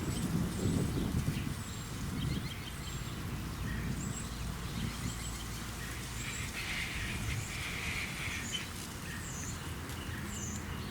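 Outdoor ambience: small birds chirping, short high chirps scattered throughout, over a steady low rumble.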